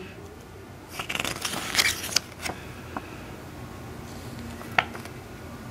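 A sheet of paper rustling as it is handled and spread open, in short crackles between about one and two and a half seconds in, then a single sharp tick near the end.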